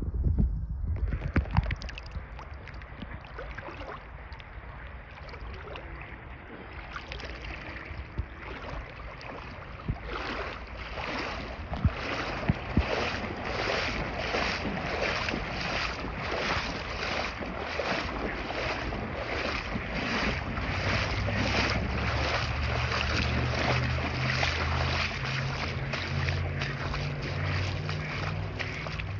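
Shallow spring-fed stream water running and rippling, with wind on the microphone adding a low rumble. The water noise grows louder about ten seconds in.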